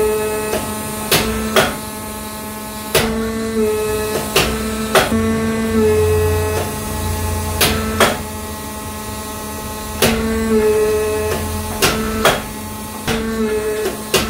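Forging press working hot steel: a steady motor-and-pump hum that swells in stretches and dips slightly in pitch as the dies squeeze the glowing hammer head. Sharp clicks and cracks come at irregular intervals about every second.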